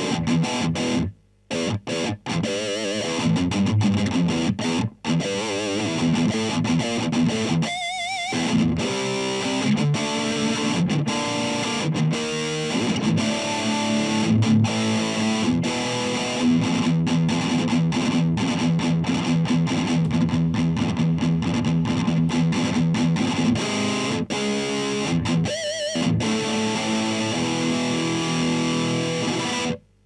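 Electric guitar played through a dirty amp boosted by an Ibanez TS9 Tube Screamer, with a Sentry noise gate: a very dry, very aggressive high-gain riff. Several times the sound stops dead as the gate clamps down on the noise between phrases.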